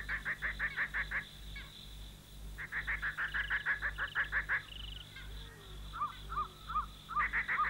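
Night-time jungle ambience: a chorus of calling animals in trains of rapid pulses about nine a second. The pulsing breaks off for a second or so early on, and a run of short arched chirps comes near the end.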